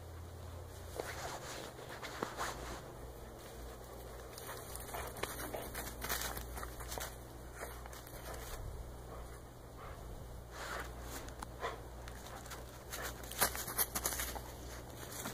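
Footsteps crunching through thin snow over dry leaves and brush, in irregular crunches and crackles, with a louder cluster of them near the end.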